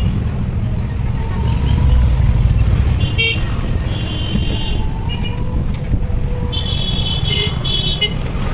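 Street traffic heard from a moving vehicle: a steady low rumble of road and engine noise, with short high-pitched vehicle-horn toots about three and four seconds in and a longer run of toots near the end.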